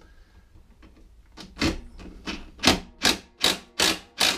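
DeWalt cordless impact driver hammering at an 8 mm axle bolt on a lawnmower deck in short, even bursts, about two or three a second, starting about a second and a half in.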